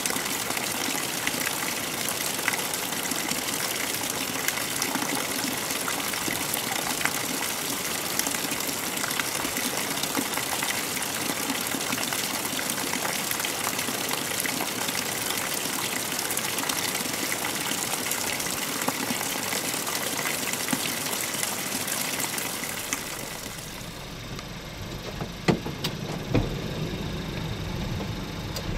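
Mountain stream water rushing steadily. About 23 seconds in the rush falls away and a low rumble with a couple of sharp knocks takes over.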